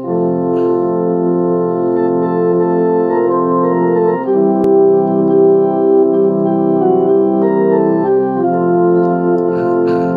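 Keyboard with an organ sound playing held chords, the harmony changing every few seconds, as the instrumental introduction to a devotional song.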